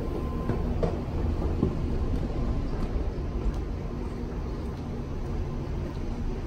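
Steady low rumble of an underground rail station concourse, the mix of its machinery and air handling, with a faint steady hum over it and a few light clicks.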